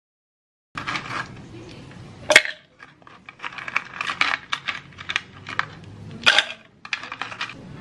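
Ice cubes dropped into a clear plastic Starbucks cold cup: a run of clattering knocks and clinks, the sharpest about two and a half seconds in, after a brief silence at the start.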